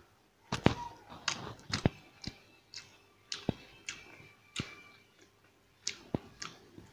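A person eating rice and curry by hand at close range: chewing and lip-smacking, with about a dozen irregular sharp clicks, some of them fingers working the food against a steel plate.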